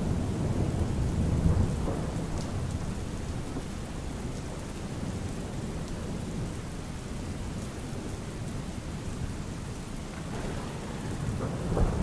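Steady rain with rolling thunder: a low rumble dies away over the first couple of seconds and another builds near the end.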